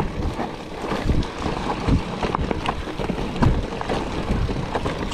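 Specialized Turbo Levo electric mountain bike descending a rough dirt trail: wind noise on the camera microphone over tyres rolling on dirt, with frequent knocks and rattles from the bike over bumps.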